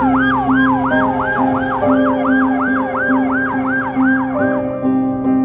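Fire truck siren yelping in fast rising-and-falling sweeps, about three a second, with a second siren wailing slowly underneath at first. The sirens cut off about four seconds in, leaving soft piano music.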